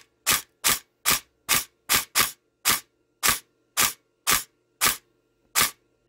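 Upgraded Tokyo Marui next-gen (NGRS) M4 airsoft electric gun with a Gate Titan controller firing in semi-auto: about a dozen sharp single shots, roughly two a second with one quick pair, each trigger pull giving one clean shot. This is semi fire working as it should, without the multiple firing the gun shows on a slow trigger pull.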